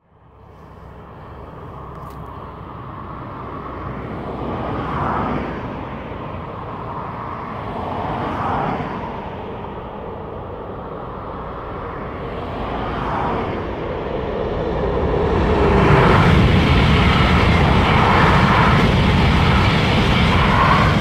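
TGV high-speed train approaching and then passing close by, a rushing noise that grows in several swells and is loudest over the last five seconds as the train goes past.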